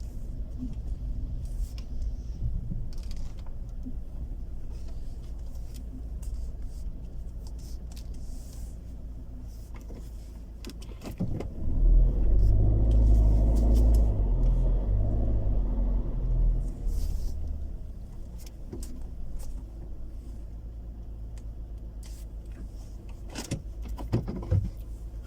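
Car driving slowly: steady engine and road rumble, louder for about four seconds near the middle, with scattered small clicks and rattles.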